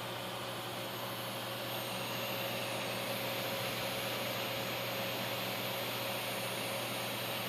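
Seasonic 1050 W power supply running: a steady fan hiss with a constant low hum and a thin high whine over it, growing slightly louder about two seconds in.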